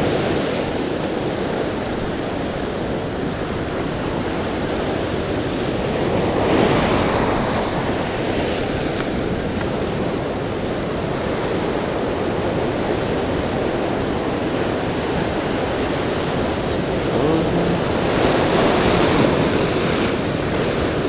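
Rough surf breaking against shore rocks and sand, a steady wash with louder surges as waves come in, about six seconds in and again near the end. Wind blows on the microphone.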